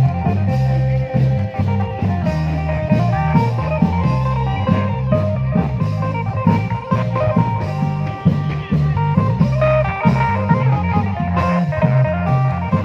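Thai klong yao long-drum band playing: a steady, driving drum beat with a sustained melody line over it.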